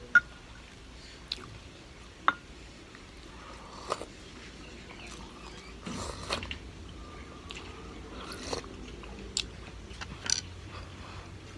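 Close-miked mouth sounds of a person biting and chewing food. A few sharp clicks are scattered through, the loudest a moment in and about two seconds in, each with a brief ring.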